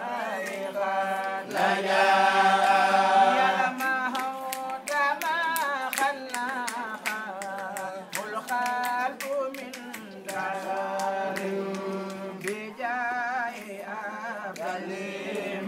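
A chorus of men singing a religious chant, with long held notes and a wavering pitch, loudest about two to four seconds in. Frequent sharp clicks run through the singing.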